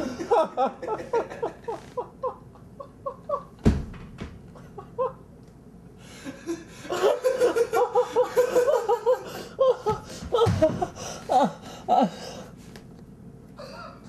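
Hearty laughter in quick ha-ha bursts that tail off around five seconds in and break out again about a second later, with a single thump at about three and a half seconds.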